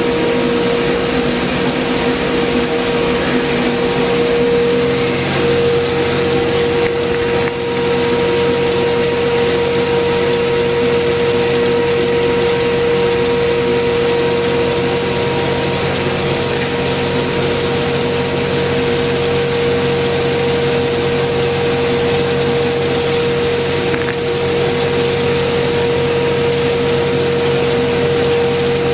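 Pagani 2550 plastic granulator running together with the centrifugal blower of its pneumatic take-off system: a steady loud rushing whir with a constant mid-pitched hum.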